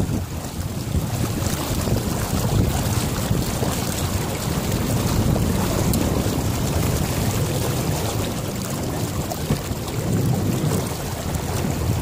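Wind buffeting the microphone on a sailboat under way: a low, uneven rush that swells and fades.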